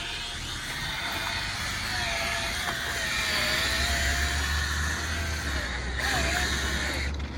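A power tool's motor running steadily with a thin whine that sags in pitch briefly a few times, as if pressed under load, over a low hum.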